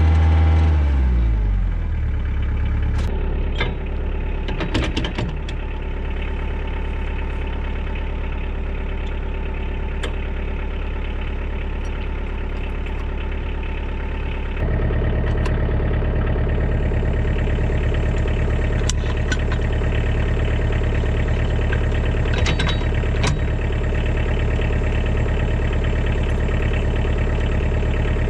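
Kioti DK40se tractor's diesel engine winding down from higher revs to idle over the first two seconds, then idling steadily, with scattered sharp clicks. About halfway through, the idle steps up louder with a changed note.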